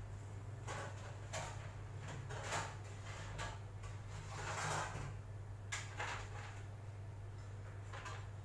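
Someone rummaging inside a low kitchen cabinet: scattered knocks, clatters and rustles of things being moved about, over a steady low hum.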